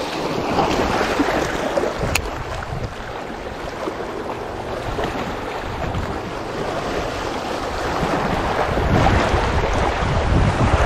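Small waves washing and splashing against shoreline rocks, with wind buffeting the microphone, the wind rumble growing stronger near the end. A single short click sounds about two seconds in.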